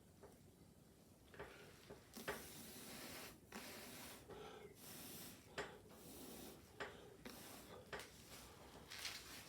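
Repeated puffs of breath blown through a drinking straw to push wet acrylic pouring paint across a board, about five breaths, with a few light clicks between them.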